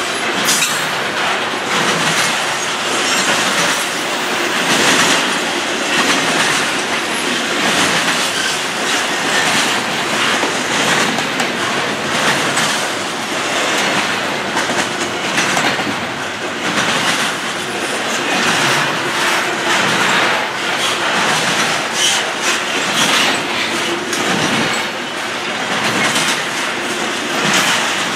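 Double-stacked intermodal container well cars of a long freight train rolling past at speed: a steady rumble of steel wheels on rail, with repeated clacks as the wheels run over the track.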